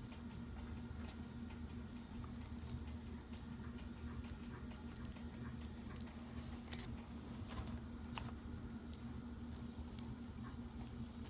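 Argentine black and white tegu eating banana: scattered soft clicks and smacks of its jaws and mouth, sharpest around six and a half and eight seconds in, over a steady low hum.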